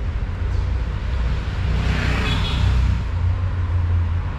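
Steady low outdoor rumble, with a swell of hiss that rises and fades about two seconds in.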